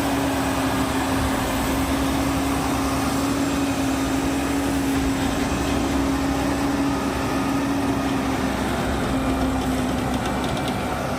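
Logging truck engine running steadily, a continuous drone with one held tone that sags slightly in pitch near the end.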